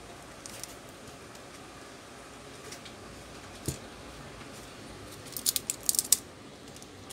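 Small sharp clicks and taps from hands working on an opened smartphone: one click about three and a half seconds in, then a quick cluster of clicks a little past five seconds.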